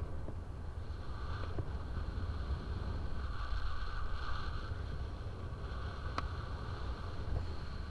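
Airflow buffeting a paraglider pilot's camera microphone in flight: a steady low rumble of wind. A single sharp click comes about six seconds in.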